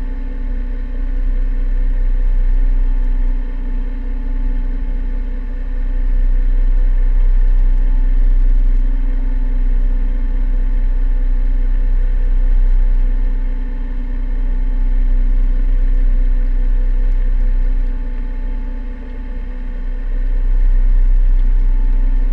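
Sailboat's auxiliary engine running steadily at a constant pitch while the boat motors with its sails down. A low rumble of wind on the microphone rises and falls over it.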